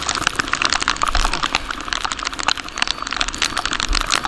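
Heavy rain drumming on a riding motorcyclist's camera microphone: a dense, rapid patter of drop hits over steady wind and wet-road rush.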